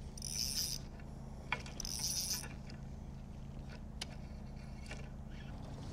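Fishing reel being cranked in two short spells, each a brief hiss, with a few light clicks of tackle, over a steady low hum.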